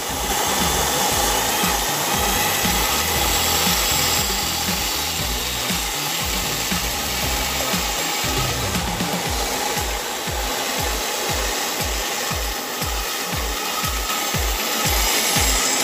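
Band saw running and cutting through a thick wooden block: a steady hiss of the blade in the wood over the machine's hum.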